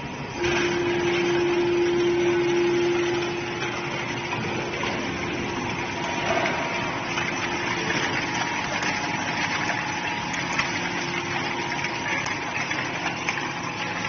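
Hydraulic metal scrap baler's power unit running. A steady hydraulic whine comes in about half a second in and is loudest for the first few seconds, then carries on more quietly.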